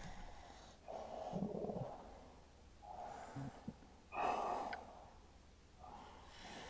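A man breathing heavily in distress, with four audible breaths a second or two apart.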